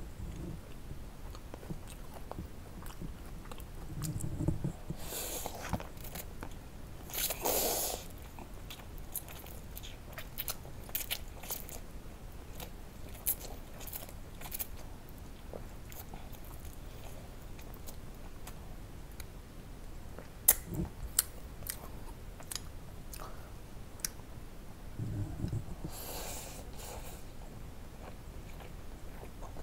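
Close-miked eating of spicy Korean ramen: chewing and crunching with many small mouth clicks, and a few longer noisy bursts, two in the first third and one near the end.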